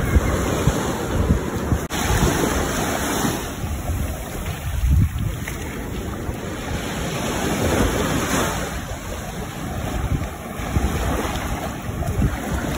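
Ocean surf washing onto a beach, with wind gusting and rumbling on the microphone.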